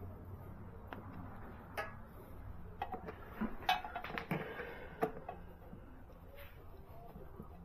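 Light clicks and clinks of hand tools and metal parts being handled while bolts are worked on a motorcycle, with most of the knocks bunched in the middle.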